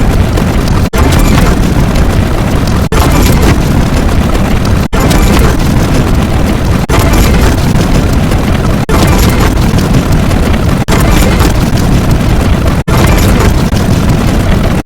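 A loud, dense wall of many sound effects played on top of one another, heavy booms among them. It breaks off briefly and starts again about every two seconds.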